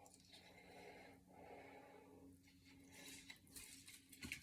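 Faint, heavy breathing of a man in and out in long breaths, hard and slow against the burn of a Carolina Reaper–spiced chicken sandwich. A few faint clicks come near the end.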